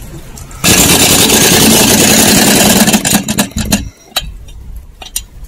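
Impact wrench hammering on a beadlock ring bolt of an off-road wheel: one loud, steady burst starting under a second in and lasting about three seconds, then a few light clicks.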